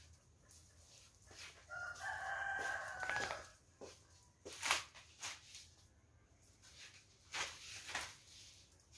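A rooster crowing once, about two seconds in, lasting around a second and a half. Scattered short taps and clicks follow.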